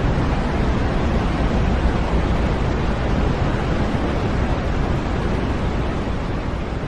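Steady synthesized white noise: an even, unchanging hiss.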